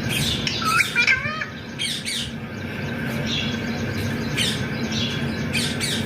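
Rose-ringed (green ringneck) parakeet making short chirps and squawks, with a twisting, warbling call about a second in.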